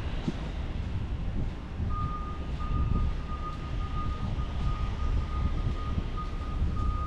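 A vehicle's reversing alarm beeping in an even, repeating pattern, starting about two seconds in, over a low wind rumble on the microphone.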